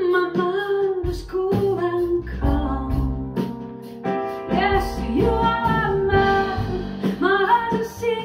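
A song with a woman singing over instruments and bass, played back through KEF LS60 Wireless speakers and heard in the room.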